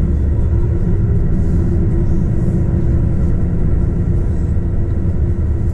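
44-tonne truck driving at a steady pace: a continuous low diesel engine drone with road rumble and a steady hum, unchanging throughout.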